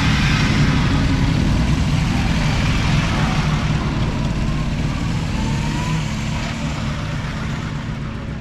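Engines of vintage Bugatti cars running at low speed as they move off in a group, a steady low rumble that gradually fades.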